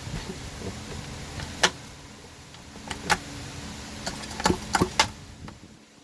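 Sharp clicks and knocks of chainsaw parts being handled and worked on by hand, a few scattered strokes with the last three close together near the end, over a faint steady hum.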